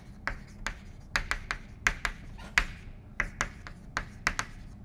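Chalk writing on a chalkboard: an irregular run of sharp taps and short scratches as each letter is stroked onto the board.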